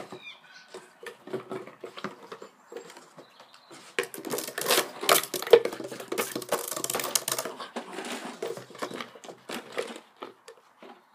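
A plastic bottle clattering, clicking and scraping across stone paving slabs as a springer spaniel puppy chases and bats it, in a quick irregular run of knocks that is busiest and loudest in the middle.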